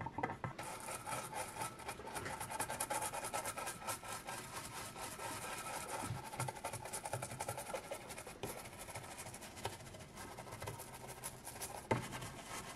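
A brush scrubbing flux residue off a circuit board: a steady run of fast, scratchy strokes across the board, with a sharper rub near the end as a paper towel is wiped over it.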